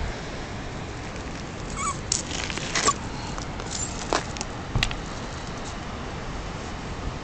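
Small dog whimpering in a few short, high squeaks between about two and five seconds in, over a steady background hiss.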